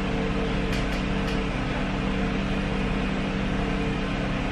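A machine running with a steady hum, with a few faint clicks about a second in.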